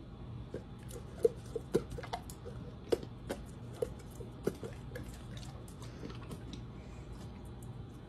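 Mastiff crunching a small frozen blueberry and goat's milk treat: a run of irregular sharp crunches and clicks, thickest in the first half and thinning out toward the end.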